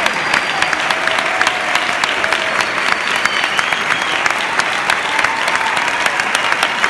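Audience applauding: dense, steady clapping, with a few voices faintly audible over it.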